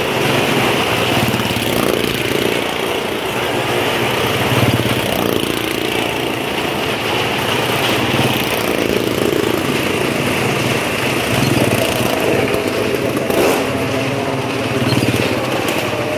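A motorcycle engine and a car engine running at speed as they circle the wall of a well-of-death drum, the engine note swelling and fading every couple of seconds as the vehicles pass.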